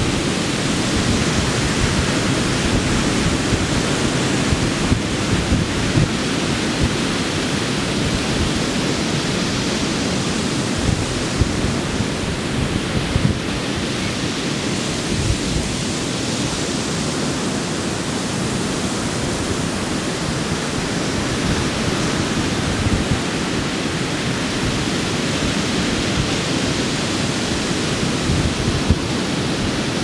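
Ocean surf: waves breaking and washing up the beach in a steady rush, with wind buffeting the microphone in low, gusty rumbles.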